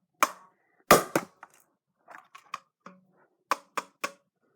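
Plastic shell of a Razer DeathAdder computer mouse being struck to break it open: a series of sharp, irregular knocks, the loudest about a second in.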